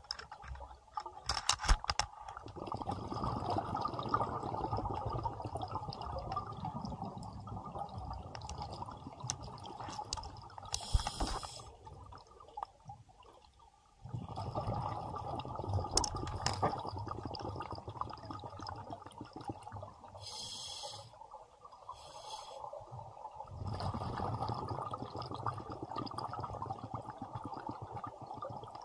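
Scuba regulator underwater: long stretches of bubbling from exhaled breaths, with a few short, high hisses of inhalation in between. A few sharp knocks near the start.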